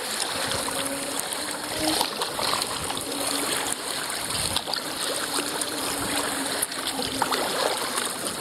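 Water splashing and trickling around a kayak as the paddle dips and pulls through choppy marina water.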